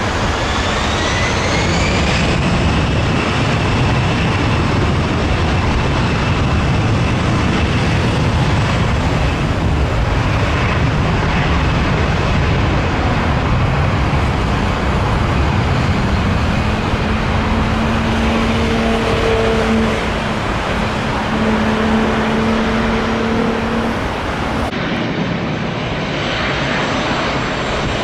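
Jet airliner noise on landing approach: a high engine whine rising over the first couple of seconds, then a steady loud rush mixed with road traffic. A steady low hum comes in twice in the second half.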